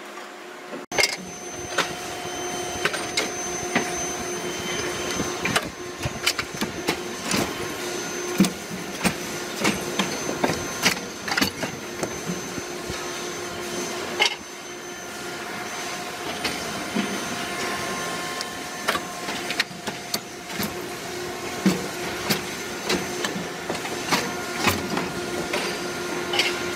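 Automatic chain-making machine running: a steady mechanical hum with a few held tones, broken by frequent irregular metallic clanks and clicks as steel chain is worked through it.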